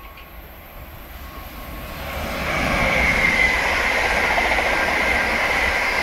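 London Northwestern Railway electric multiple unit passing at speed. The rush of wheels on rail builds over the first two or three seconds, then holds loud with a steady high whine running through it.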